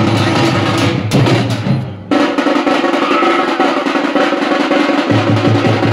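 A large troupe of drummers beating big steel-shelled drums with sticks in a fast, loud, rolling rhythm. The drumming dips briefly just before two seconds in, then comes back at full force, and deep bass strokes return near the end.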